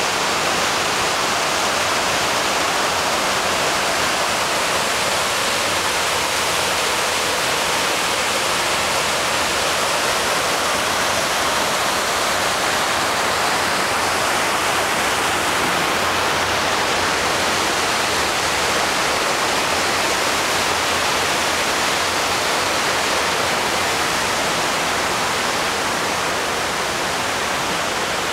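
Steady rush of water from a 9/11 Memorial reflecting pool, its waterfalls pouring down the pool's walls in a continuous curtain. The sound drops a little near the end.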